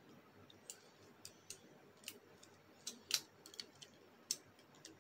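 Faint plastic clicks and ticks as the parts of a translucent plastic Bakugan figure are folded and snapped shut into its ball form. Ten or so short, sharp clicks at uneven spacing, the loudest just after three seconds in and again about a second later.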